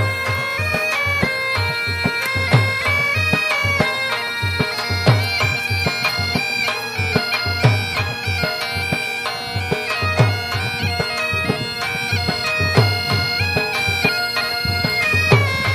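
Background music: a held, stepping melody over a drum beat, with a low thump roughly every two and a half seconds.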